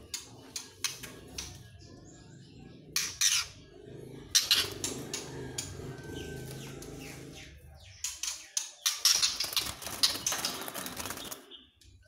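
Juvenile female white-rumped shamas fluttering and hopping in a wire cage: bursts of wing flapping with light rustling and clattering, busiest from about eight seconds in until near the end.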